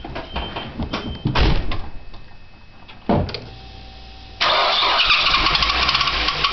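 Nissan Primera engine: a few clicks and two thumps, then the engine starts about four seconds in and runs with a loud, rapid rhythmic knocking clatter. This is the bad engine noise the owner cannot identify.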